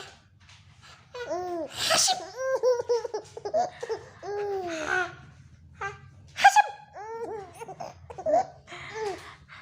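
Baby laughing: repeated high-pitched giggles with several short breathy bursts between them.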